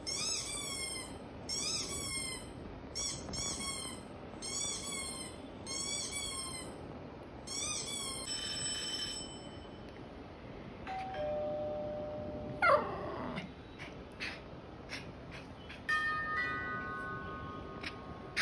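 A sequence of sounds played back to a dog. First come bursts of rapid high-pitched squeaks, several to a burst, repeating about every second and a half for the first eight seconds. Then a two-note ding-dong doorbell chime sounds about eleven seconds in, with short chiming tones near the end.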